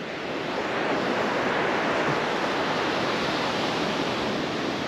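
Sea surf breaking on a sandy beach: a steady rushing wash of waves that swells a little in the first second.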